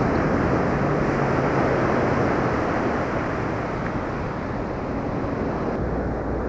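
Steady rush of surf breaking and washing on a beach, mixed with wind buffeting the microphone.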